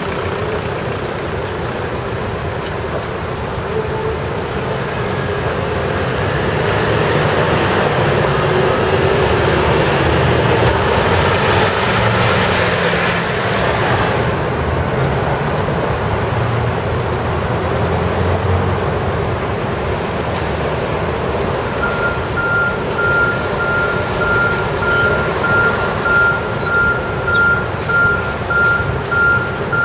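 Steady intersection traffic, with engine and tyre noise swelling as heavy vehicles pass through the middle. About two-thirds of the way in, a vehicle's reversing alarm starts beeping steadily, about once a second.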